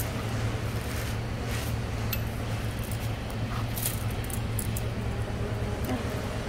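Steady low background hum, with a few faint light clicks as a tape measure is handled along a metal ball screw.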